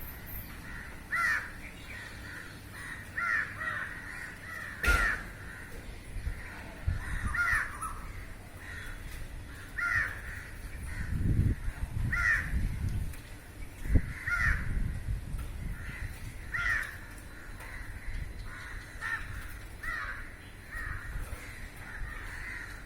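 A flock of crows cawing, single harsh caws from several birds coming every second or so. A low rumble rises in the middle, and two sharp knocks sound about five seconds in and again near fourteen seconds.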